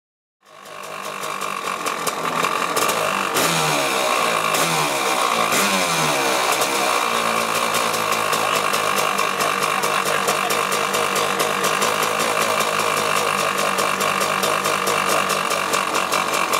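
Honda CR500's two-stroke single-cylinder engine running loudly, its pitch wavering over the first few seconds and then holding steady.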